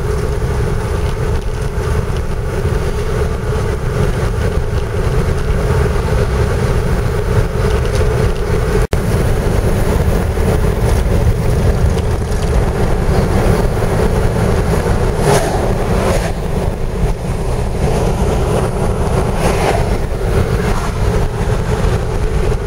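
Steady road noise inside a moving car's cabin: a constant low rumble from the engine and tyres at road speed. It drops out for an instant about nine seconds in, and swells briefly twice in the second half.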